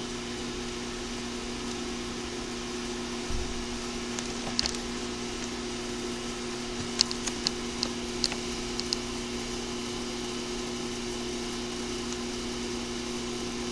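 An A/C refrigerant recovery and recharge machine running with a steady hum. A few light clicks come near the middle as its keypad buttons are pressed.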